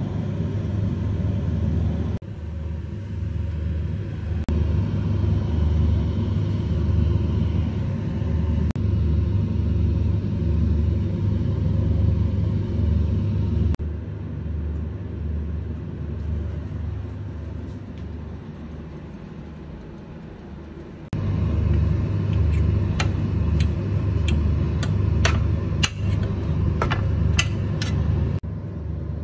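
A loud low rumble that cuts in and out sharply several times and drops lower for a stretch in the middle. In the last several seconds, a run of sharp metallic clicks as metal tongs tap against a baking tray.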